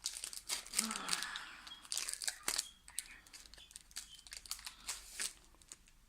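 Foil wrapper of a Pokémon card booster pack crinkling and tearing as it is opened, with dense crackling for the first few seconds that thins out towards the end.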